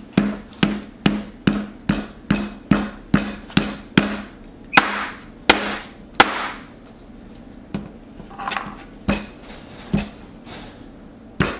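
Rubber mallet pounding Play-Doh on a tabletop: a quick, regular run of dull knocks, about two and a half a second, for the first four seconds, then a few louder, slower strikes and scattered knocks after that.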